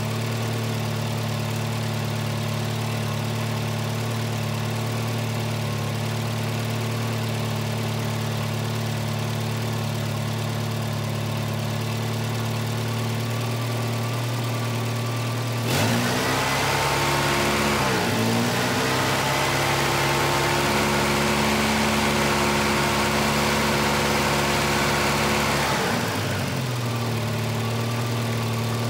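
Volvo 240's B230F four-cylinder engine running at a steady high idle. About two-thirds of the way in a sharp click comes and the engine note dips, then settles on a different, slightly louder and hissier note for about ten seconds before going back to the first steady idle: the idle shifting as the idle air control valve is made to respond.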